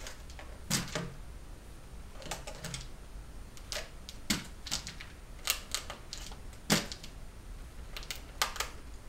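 A rabbit biting at, lifting and setting down a flat piece of bark: a dozen or so irregular sharp clicks and taps, three of them with a dull knock.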